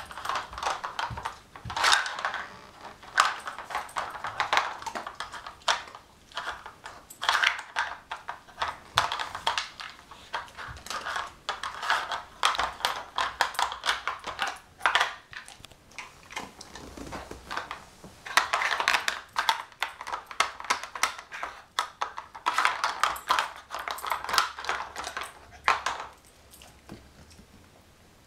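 Hard plastic bone-shaped pieces of a Nina Ottosson dog puzzle toy clicking and clattering in their plastic tray as a rough collie noses and lifts them out to get at hidden treats. Irregular spells of sharp clicks and knocks with short pauses, dying down near the end.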